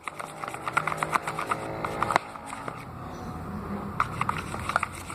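A spoon stirring glue and baking powder in a container, making a quick run of small clicks and scrapes that pauses about three seconds in and starts again near the end, over a faint steady hum.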